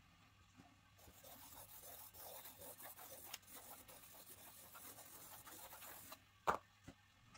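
Graphite pencil scribbling fast loops across a sketchpad sheet: a faint, scratchy rubbing that runs for about five seconds and then stops, followed by a single sharp knock near the end.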